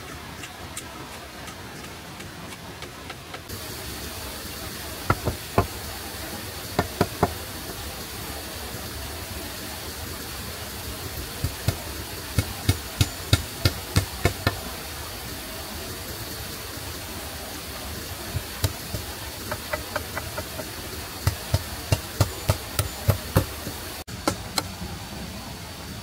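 Runs of sharp knocks, about three a second, in groups of a few to about ten strikes, typical of a hand tool striking wood, over a steady background hiss.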